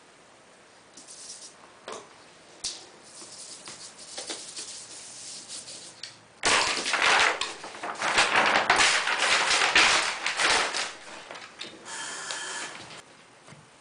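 A large sheet of paper rustling and crackling as it is handled. Light rustles and taps come first; then, about six and a half seconds in, a sudden loud crackling rustle lasts about four seconds as the sheet is lifted and swung. A short rattle follows near the end.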